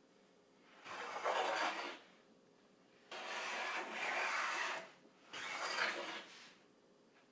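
Lie-Nielsen No. 7 jointer plane taking three long cutting strokes along the edge of a padauk board, each stroke a hiss of the iron lifting a shaving, with short pauses between. Padauk is difficult to plane, and the cut is tearing out.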